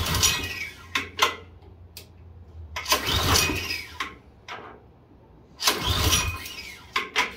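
LCT Storm Force 179cc snowblower engine being pull-started three times: each yank of the recoil rope gives a rasping whirr as the engine cranks over, and sharp clacks follow as the handle and rope snap back. The engine does not catch and run.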